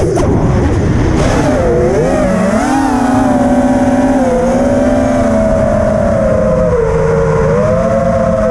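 FPV racing quadcopter's four brushless motors (T-Motor F60 Pro II on 5-inch T-Motor props) whining. The pitch swings up and down with the throttle over the first few seconds, then settles to a steady hum that drops a little about seven seconds in, with wind rushing past the onboard camera.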